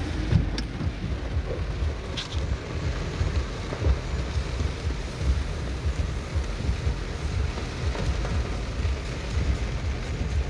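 Heavy rain falling, with wind gusting on the microphone as an uneven low rumble.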